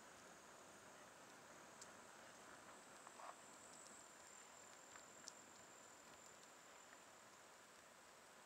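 Near silence: a faint, steady high-pitched insect drone with a few faint ticks.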